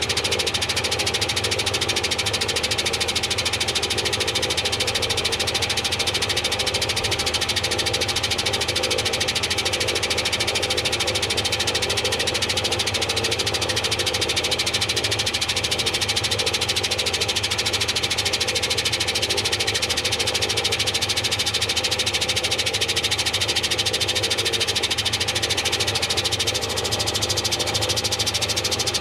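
Washing machine running, a steady, even mechanical drone that holds the same level throughout.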